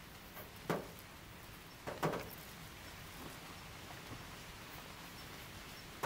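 Two short knocks a little over a second apart, the second a quick double, over a faint steady hiss.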